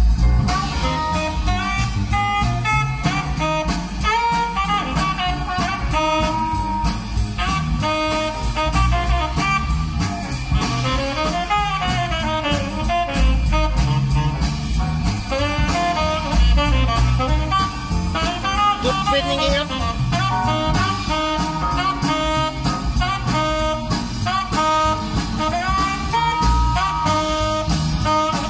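A CD track of jazz-like music with a steady beat, played through the car's aftermarket Audison Full DA sound system with subwoofer and heard inside the cabin.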